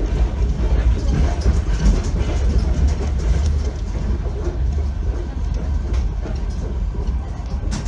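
Passenger train carriage running along the track, heard from inside: a steady low rumble from the wheels and bogies, with a couple of sharp clicks near the end.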